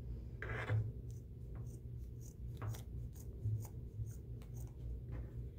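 Scissors cutting through a T-shirt: a run of short, irregular snips and fabric rustling, with one louder rustle a little under a second in.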